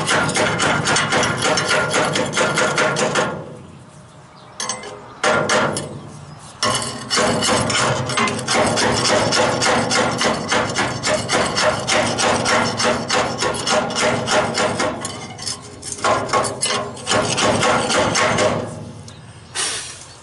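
Rapid metal-on-metal chipping: a pickle fork (ball-joint separator), used in place of a chipping hammer, knocking slag off a fresh first-pass stick weld on steel. The strikes come in several fast runs with short pauses between them.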